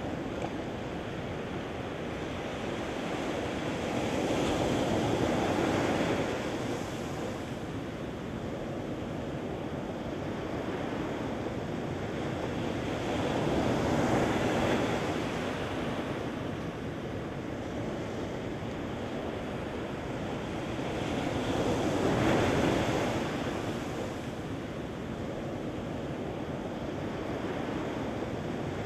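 Surf breaking and waves washing up a sandy beach, a steady rush that swells three times as waves come in, at about a fifth of the way, halfway and three quarters through, with some wind on the microphone.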